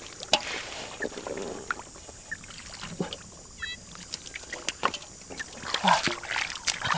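Shallow muddy water splashing and sloshing as hands and feet work in a flooded rice field, with scattered short clicks and knocks. A brief high chirp sounds a little past halfway.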